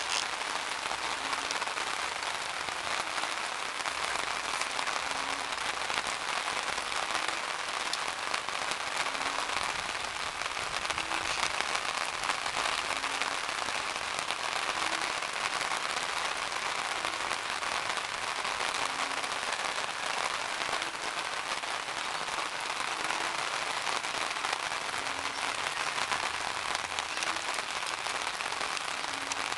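Heavy typhoon rain falling steadily, a dense, even hiss that does not let up.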